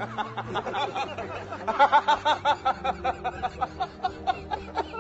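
High-pitched laughter, a fast string of short chuckling notes, loudest about two seconds in.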